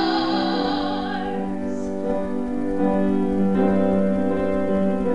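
Piano playing sustained accompaniment chords between sung lines, with a held vocal note dying away in the first second or so.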